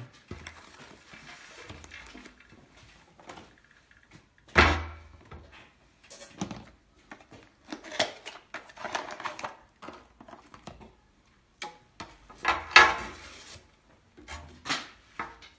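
Unpacking and handling noises: a small cardboard box being opened and clear plastic hoses pulled out and handled, with scattered knocks, clatters and rustles. The loudest is a thump about four and a half seconds in, with another burst of clatter about thirteen seconds in.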